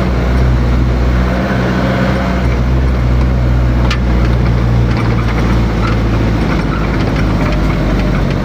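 Motor vehicle engine running steadily with a low hum, with a single sharp click about four seconds in.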